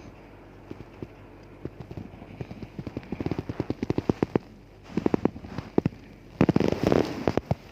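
A woman snoring: rattling, fluttering snores in repeated bursts of about a second, each made of rapid clicks, growing louder toward the end.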